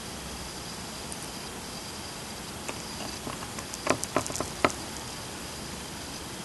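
Steady quiet hiss with a brief run of light clicks and taps about four seconds in.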